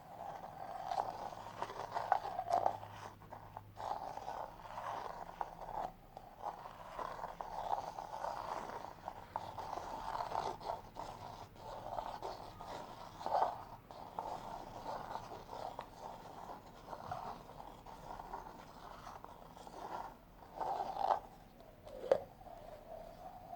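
Close-miked ASMR trigger sounds: irregular soft scratching and scraping, with a few sharper, louder crackles about halfway through and near the end.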